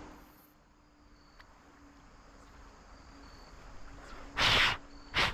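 Crickets chirping faintly over a stream hush, broken by two loud, short rushes of air-like noise: a longer one about four seconds in and a brief one just after.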